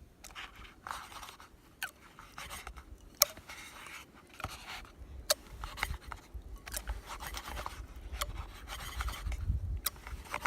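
Boiled tomatoes and serrano peppers being mashed with a stainless-steel can cooler used as a masher: wet scraping and squishing, with a sharp knock against the vessel every second or so.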